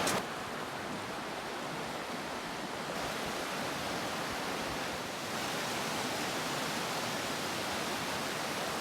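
Steady rushing of river water, an even hiss that grows slightly louder about five seconds in.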